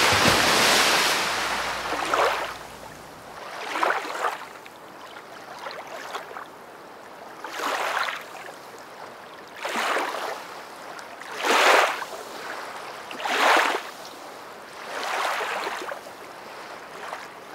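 A big splash into a swimming pool, then a swimmer doing front crawl: regular arm-stroke splashes about every two seconds.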